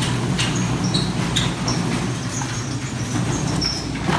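Steady low drone of a running vehicle, with a few short, faint high squeaks over it.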